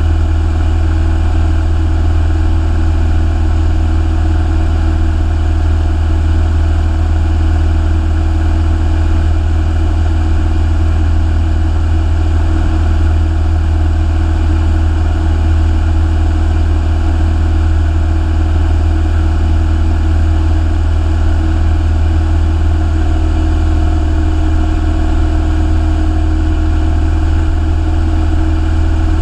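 Piston engine and propeller of a single-engine light aircraft running steadily in flight, heard inside the cockpit: a loud, even low drone with a steady hum above it.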